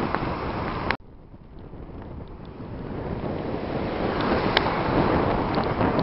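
Ocean surf with wind rushing over the microphone. About a second in the sound drops away abruptly, then swells back up over the next few seconds, with a faint click near the middle.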